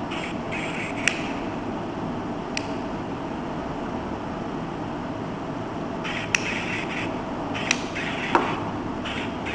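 Novelty Dalmatian-dog cigarette lighter being lit: sharp clicks from the lighter, and its built-in electronic bark sounding in short bursts of yips near the start and again from about six seconds in, over a steady hiss.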